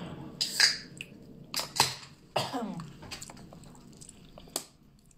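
Eating sounds: several sharp clicks and crackles of a plastic fork and a clear plastic takeout clamshell being handled, with chewing.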